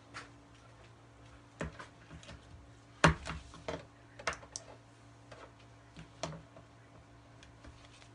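Scattered sharp clicks and knocks of small hard objects being handled on a tabletop, the loudest about three seconds in, over a faint steady hum.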